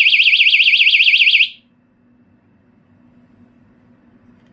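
Mini window alarm sounding a loud, high-pitched, fast-warbling shriek that cuts off about a second and a half in.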